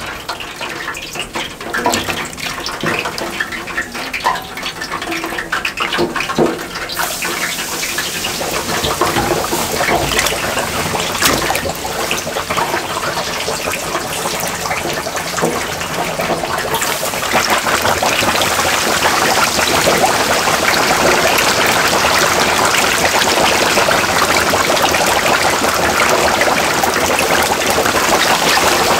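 Whole chickens deep-frying in hot oil: a dense crackling sizzle that gets louder about seven seconds in and again a little past halfway.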